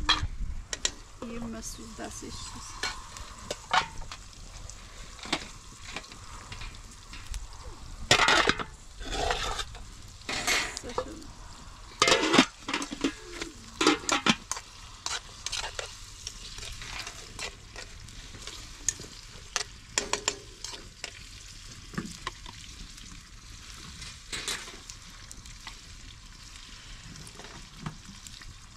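Food frying in oil in a wide pan over a wood fire, a steady sizzle throughout. A metal spoon stirs and clinks against the pan, and metal pots and lids clatter, most loudly in a run of clatter around the middle.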